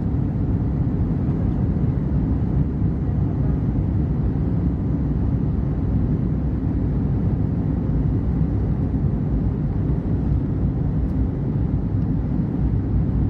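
Airbus A321 cabin noise during the climb after takeoff: a steady low drone of the jet engines and airflow.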